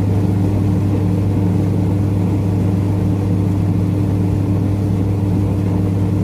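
Washing machine's electric motor running with a steady, loud hum, turning a slack drive belt that is being dressed with belt wax to stop it slipping. The sound starts and stops abruptly.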